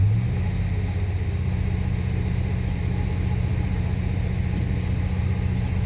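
1997 Chevrolet Suburban's gasoline V8 idling steadily, with a brief swell in engine note right at the start. The engine has a stumble that the owner thinks could be bad or fouled spark plugs.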